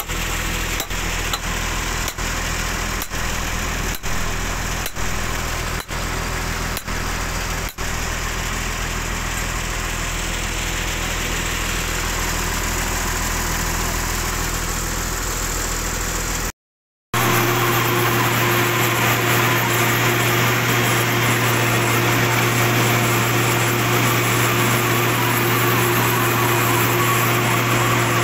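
Diesel engine of a horizontal directional drilling rig running steadily. It breaks off briefly about two-thirds through, then runs on with a stronger low hum.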